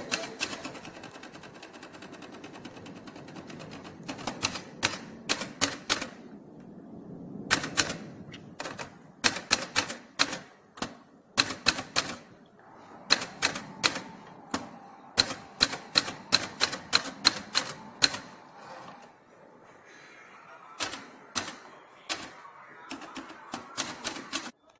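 Olympia SM 18 manual typewriter being typed on fast: sharp key strikes in quick runs, broken by short pauses.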